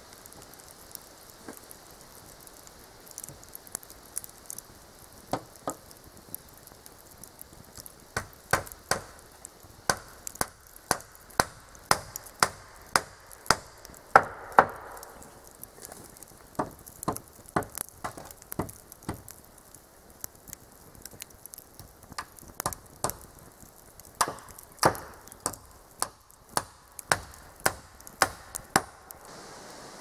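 Hammer driving nails into wooden boards: sharp strikes in several runs of about one to two a second, with short pauses between runs.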